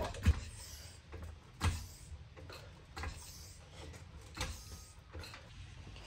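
Hydraulic floor jack being pumped to lift the car by its rear differential, the handle strokes giving a short knock about every second and a half.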